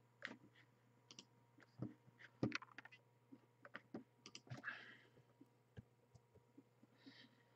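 Faint, irregular clicks from a computer keyboard and mouse, a dozen or so scattered short taps.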